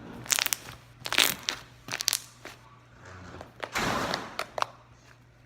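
Slime being squeezed and pressed by hand, crackling and squelching in four short spells with air pockets popping.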